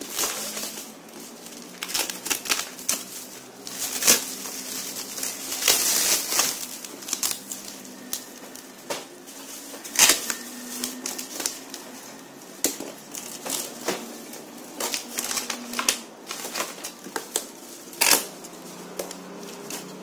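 Snap-off utility knife slicing through packing tape and plastic wrap on a cardboard box: irregular sharp clicks and scrapes with crinkling plastic, and a longer rasping stretch about six seconds in.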